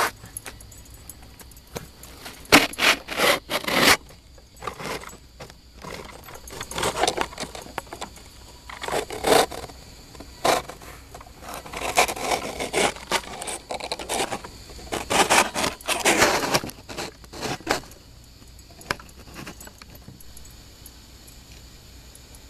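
Squirrel gnawing on a wooden door frame: bursts of rapid rasping and scraping by its teeth on the wood, each lasting a second or two, with short pauses between them, dying down near the end.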